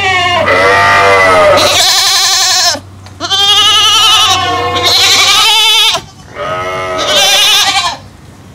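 Goats bleating: several long, loud, quavering calls in a row, with short breaks about three and six seconds in.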